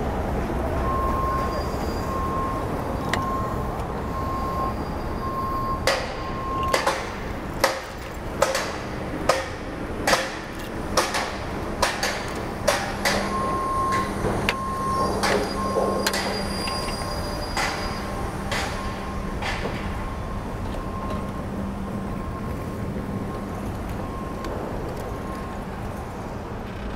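Busy city street noise with an electronic beeper sounding on and off about once a second, and a run of about a dozen sharp knocks in the middle.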